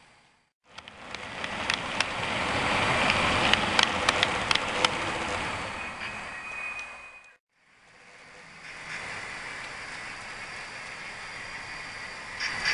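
HO-scale model freight train of hopper cars rolling past close by: a steady rushing of wheels on track that swells and fades, with sharp clicks over rail joints and a brief high squeal. After a sudden cut, a quieter steady running sound of the train further off.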